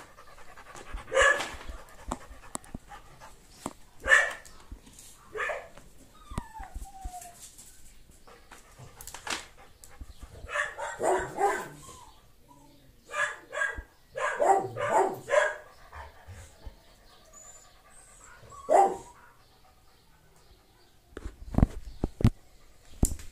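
A dog barking in short bursts: single barks a few seconds apart, then quicker runs of several barks around the middle. A few low bumps come near the end.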